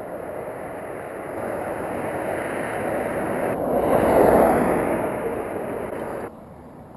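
A minivan driving past, its engine and tyre noise swelling to a peak about four seconds in and then easing away; the sound cuts off suddenly about six seconds in.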